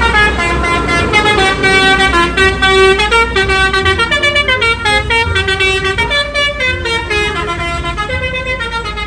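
A bus's multi-tone telolet air horn plays a tune, a quick run of notes stepping up and down, over a low engine rumble.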